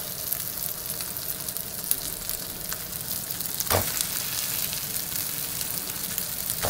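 Sausages frying in a pan, a steady sizzle with scattered crackles. A single knock comes a little under four seconds in, as onion chunks go into the pan.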